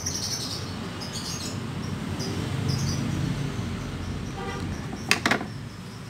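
Canaries chirping in short, scattered high calls over a low steady rumble, with one brief sharp noise about five seconds in.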